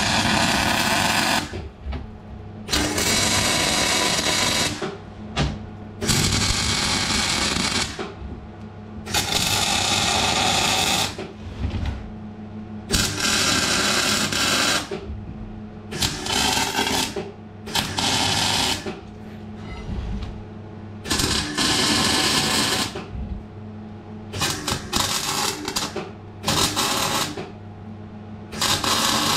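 MIG welder's arc crackling as beads are laid on rectangular steel tube, in about a dozen short runs of one to two seconds with brief pauses between. A steady low hum carries on through the pauses.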